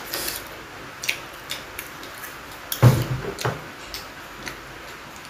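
Close-up eating sounds: scattered wet mouth clicks and smacks from chewing and finger-licking while eating meatball soup, with one louder knock about three seconds in.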